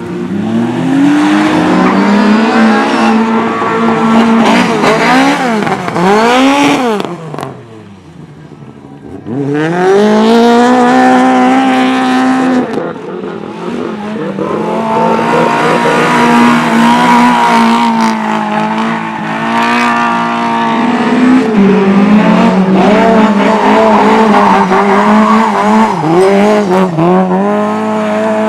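Several racing engines on a cinder track, revving up and down in overlapping sweeps as the machines lap past. The noise drops away about eight seconds in, then comes back loud with a steady high engine note for the rest of the time.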